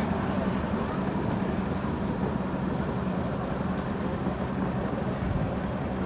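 Engine running steadily at idle: a constant low rumble with a steady hum.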